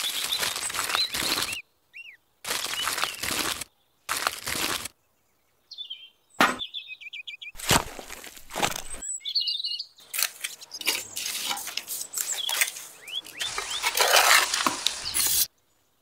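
Miniature model-building sounds in short separate bursts with abrupt cuts: scraping and rustling as a thin sheet is handled and a tiny trowel works wet cement in a small tin bucket. Birds chirp between the bursts.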